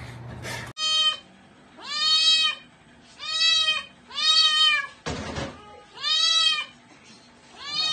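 A cat meowing repeatedly: six loud, high meows spaced about a second apart, each rising and then falling in pitch. A short breathy noise comes between the fourth and fifth meows.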